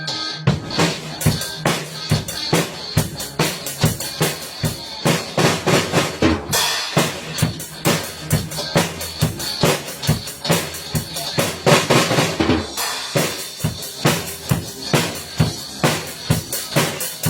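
Drum kit being played: a continuous, busy run of bass drum and snare hits with cymbal wash.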